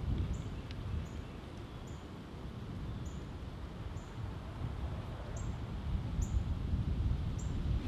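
A small bird's short, high chip notes, repeating about once a second, over a steady low rumble of wind on the microphone.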